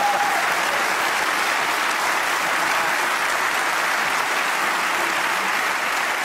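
Studio audience applauding steadily, a dense even clapping.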